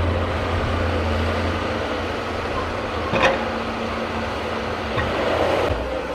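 Heavy forestry machine's diesel engine running steadily with a low hum, with a single knock about three seconds in.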